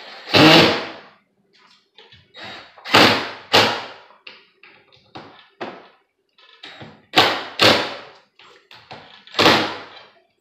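Knocks on a wooden screen door and its frame as the door is hung back up: a run of sharp knocks, the loudest coming in pairs about half a second apart, with fainter taps between.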